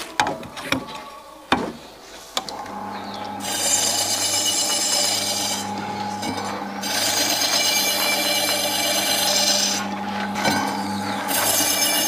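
Electric meat slicer cutting a fatty beef roll. After a few knocks, the motor starts humming about two and a half seconds in, and the spinning circular blade rasps through the meat in three long passes of the carriage.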